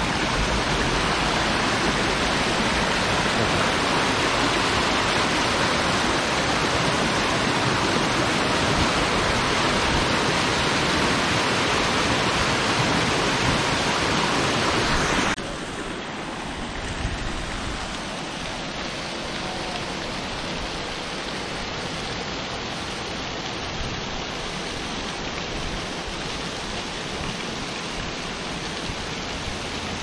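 Rushing water of a stream cascading over rocks, a steady loud rush. About halfway through it cuts abruptly to a quieter, duller rush of the waterfall heard from above.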